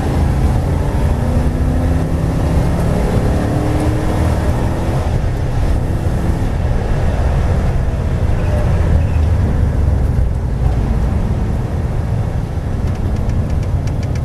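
V8 race car engine running hard on track, heard from inside the cabin, its pitch climbing under acceleration over the first few seconds.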